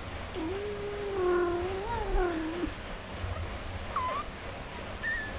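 Cats meowing: one long, drawn-out meow that falls in pitch at its end, then a short, higher cry about four seconds in and a brief high squeak near the end.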